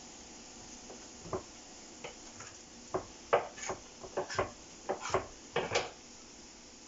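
Spatula clattering and scraping against a frying pan while stirring onions and peppers as they sauté: a few separate knocks at first, then a quick run of about a dozen clatters from about three seconds in until near the end.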